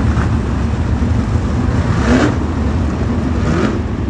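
410 sprint car engines running on the dirt track as a steady low rumble, with a car revving up louder about two seconds in and another near the end.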